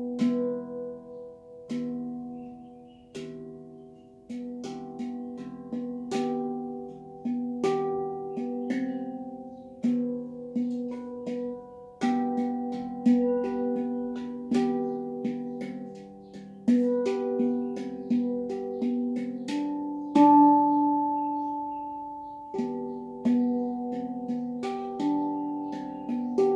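Handpan played with the fingers: a rhythmic melody of struck steel notes, each ringing and fading before the next, with a louder low note about twenty seconds in.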